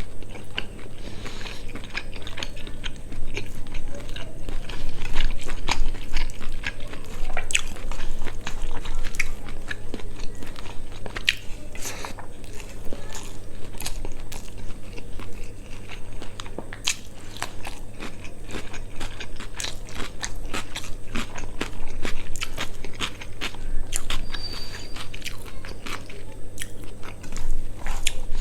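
Close-up mouth sounds of a person eating spicy quail curry with rice: chewing and biting, heard as a dense, irregular run of short, sharp clicks. A steady low hum sits underneath.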